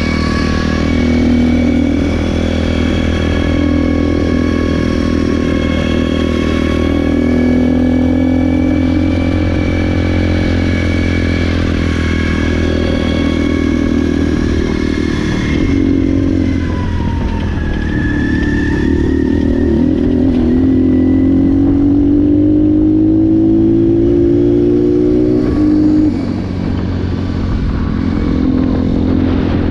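Apollo 250RX dirt bike's 250cc four-stroke single-cylinder engine running continuously while ridden, engine speed rising and falling with the throttle, with a long steady climb in revs about two-thirds of the way through and a brief drop just after.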